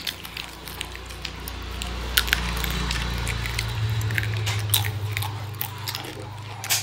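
Crisp fried banana chips being bitten and chewed close up: sharp, irregular crunches, one loud crunch about two seconds in and another near the end, over a steady low hum.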